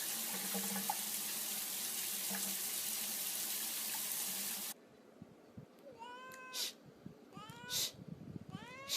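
Steady rushing noise of running water that cuts off abruptly about halfway through, followed by a cat meowing three times, each call sliding in pitch.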